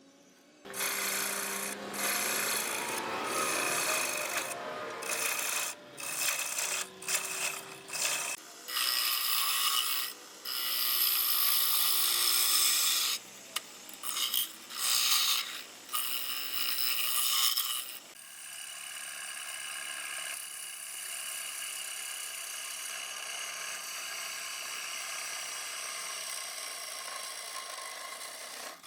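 A power tool working wood, cutting or abrading with a rasping, rubbing sound. It runs steadily for several seconds, then in short on-and-off spells, then settles into a steadier, quieter run for the last ten seconds or so.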